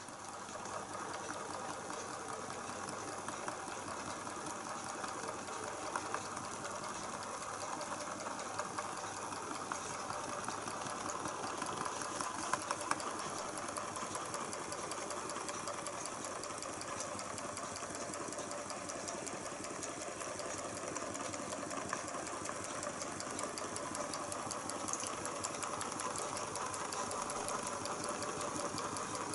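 Model Stirling engine with a vertical crankshaft and horizontal flywheel running steadily: a rapid, even mechanical chatter from its piston, linkage and flywheel, with a few louder clicks.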